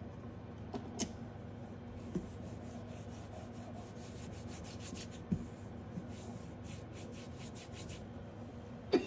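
A pad rubbed back and forth over a metal nail-stamping plate in quick strokes, wiping off stamping polish, with a few light taps and one sharper knock at the end.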